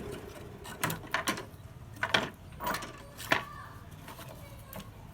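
A run of separate sharp knocks and clicks, about seven in five seconds and irregularly spaced, over a faint low hum; at the very start the noise of a machine dies away.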